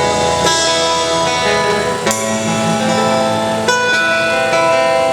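Instrumental song intro led by guitar, with held chords that change every second and a half or so.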